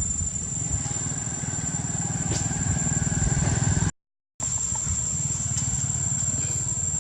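A small engine running steadily, its low pulsing even throughout, under a steady high whine. The sound drops out to silence for half a second about four seconds in.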